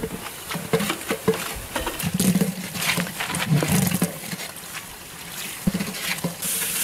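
Clatter of a metal ladle knocking and scraping against a large aluminium cooking pot as spices are added and the curry masala is stirred, with irregular clicks and knocks over low background sounds.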